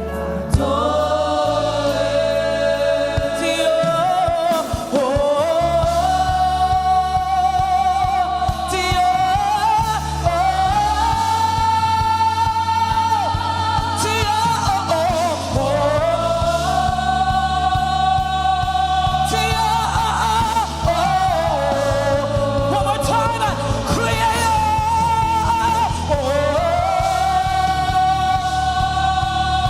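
Live gospel worship music: a singer holds long, drawn-out notes that slide up into each phrase, over sustained keyboard and bass chords that change every few seconds.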